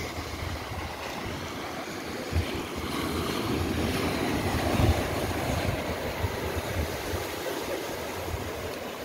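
Wind rumbling on the microphone over the steady wash of surf, with two stronger gusts, one about two and a half seconds in and one about five seconds in.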